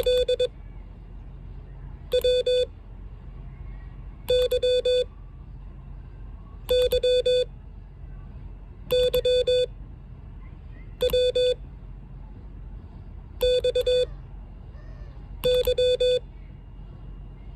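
Morse code (CW) sidetone: a single steady beep near 500 Hz keyed in dits and dahs, one letter at a time with about two seconds between letters, about eight letters sent as a code-copying test.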